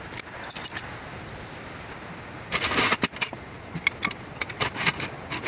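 Scattered metal clicks and clanks, with a louder rattling clatter about halfway through, from a hydraulic floor jack and its handle being worked under a car to let it down.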